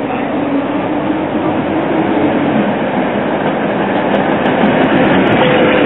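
Coupled pair of ČKD Tatra T3 trams running past close by on street track, steady rolling and running noise with a faint whine that rises in pitch over the first couple of seconds. It grows a little louder as the cars draw alongside.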